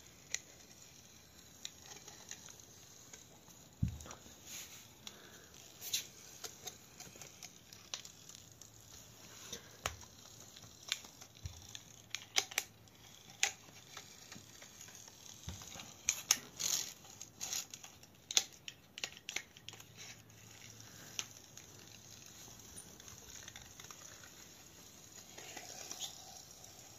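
Faint, scattered clicks and light taps of a small plastic toy car being handled and pushed along a hard floor, with a dull thump about four seconds in and a busier run of clicks about two-thirds of the way through.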